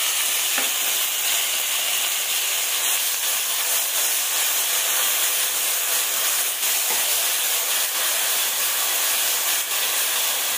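Ground onion paste sizzling in hot oil with cumin and mustard seeds in a stainless-steel kadai, a loud, steady frying hiss as the wet paste hits the oil, with a steel ladle stirring and scraping the pan now and then.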